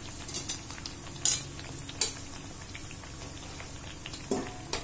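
Oil sizzling steadily as methi dough rounds deep-fry in an iron kadai, with a handful of sharp metal clinks from a steel utensil against the pan.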